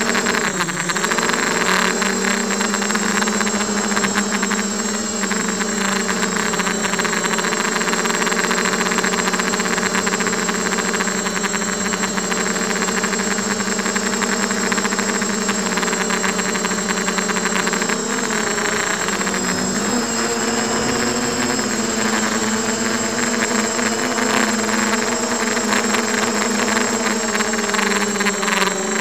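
Diatone 250 racing quadcopter's Emax 1806 brushless motors and HQ props whining steadily, recorded close up by its onboard camera. The pitch dips briefly about a second in and again around twenty seconds in as the throttle eases, then climbs near the end. A thin high whistle sits over it throughout.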